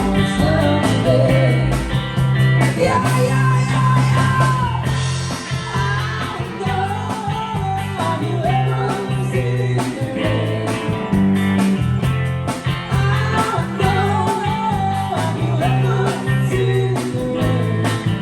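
Rock music: a steady bass line and guitar with a singing lead voice.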